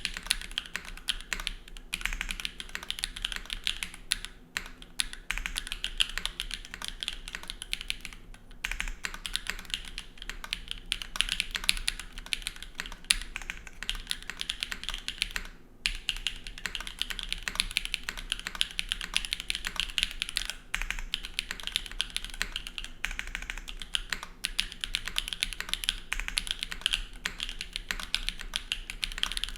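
Continuous fast typing on a TYP60 SL custom mechanical keyboard with stock SWK Catmint switches and GMK keycaps, on a full aluminum plate, O-ring mounted with no foam. A dense run of keystrokes broken by a few brief pauses.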